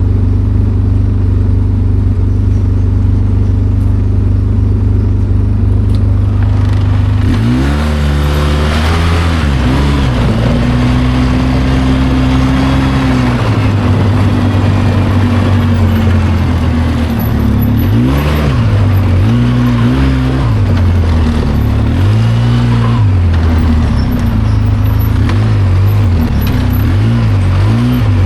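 Vehicle engine running at a steady idle, then from about seven seconds in it speeds up and holds. After a drop it rises and falls again and again as it repeatedly accelerates and eases off.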